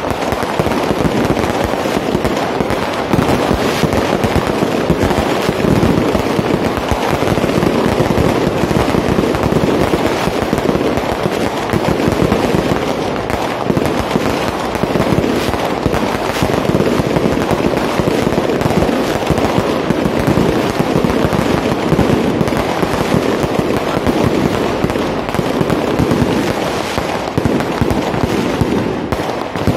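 Fireworks going off in a dense, unbroken barrage of crackles and bangs.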